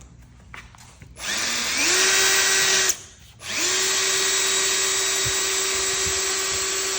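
Electric drill spinning an 800-grit sanding pad on a plastic headlight lens, wet-sanding the yellowed surface. It runs in two bursts: it spins up about a second in, stops near three seconds, then starts again and runs steadily. Its motor whine climbs to a steady pitch at each start.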